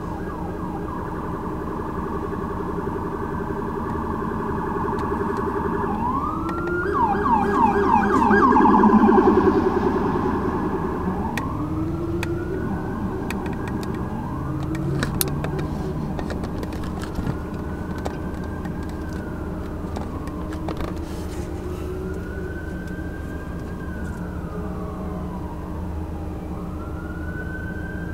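Emergency vehicle siren: a fast yelp that grows loudest about nine seconds in, then switches to a slow wail rising and falling every two to three seconds. Steady traffic rumble runs underneath.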